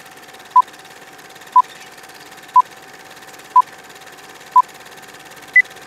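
Short electronic beeps, one each second over a steady hiss and faint hum, five at one pitch and then a single higher beep near the end, like a countdown.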